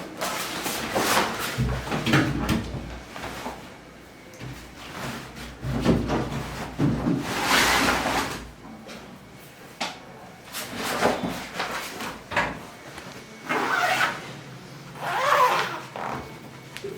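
Irregular handling noises: a string of short rubbing and sliding sounds with light bumps, like objects being moved or something being opened and shut.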